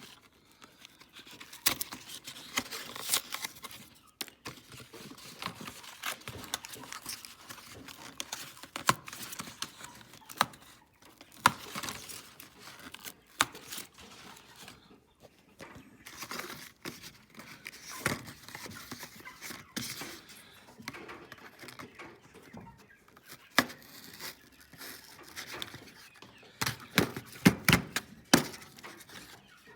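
Tool packaging being torn and pried open by hand: crinkling and tearing with scattered sharp clicks, scrapes and knocks, and a run of louder knocks near the end.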